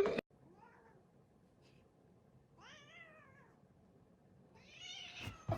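A cat meows once, faintly, about three seconds in: a short call that rises and then falls in pitch.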